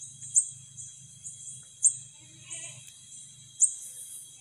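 Chorus of night insects: a steady high buzz and two thin steady whines, with a loud, sharp, very high chirp repeating about every one and a half seconds, three times. A faint low pulsing hum runs underneath.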